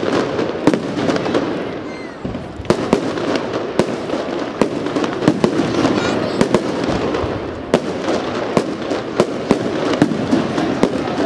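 Aerial fireworks bursting in a rapid, irregular barrage, about two sharp bangs a second over continuous rumble and crackle.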